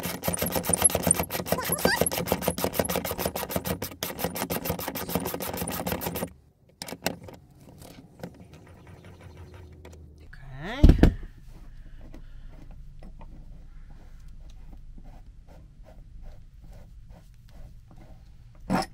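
Ratchet wrench turning a nut down a threaded steel rod through a steel plate on a wooden beam: fast, even pawl clicking for about six seconds, a short loud rising squeak about eleven seconds in, then slower, fainter clicks.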